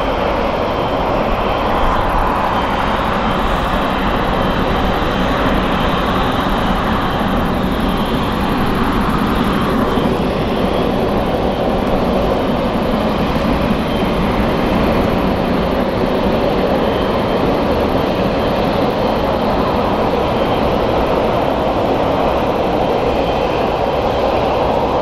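Boeing 777 freighter's two GE90 turbofans running at taxi power, a steady loud rush with a faint high whine.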